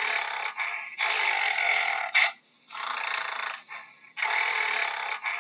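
Gorilla making a steady run of harsh, breathy grunts, each about a second long with short gaps between. A brief, sharper burst comes a little after two seconds in.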